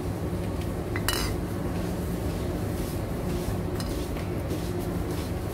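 Steady low hum of a supermarket's background with a few light clinks and rattles of goods or a trolley being handled, the loudest cluster about a second in.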